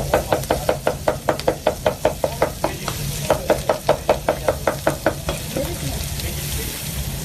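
Cleaver chopping grilled kokoreç on a wooden board in fast, even strokes, about five a second. The strokes pause briefly about two and a half seconds in, resume, and stop about five seconds in.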